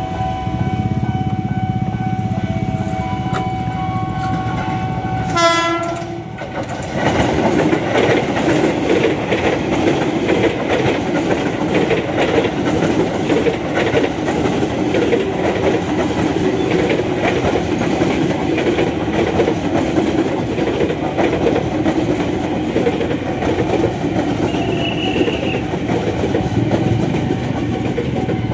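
JR 205 series electric commuter train sounding a short horn blast about five seconds in, then passing close by with a continuous rumble and rhythmic clickety-clack of its wheels over the rail joints.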